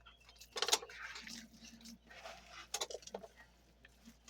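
Hands squishing and kneading raw ground beef mixed with egg and breadcrumbs, in short, soft, wet bursts.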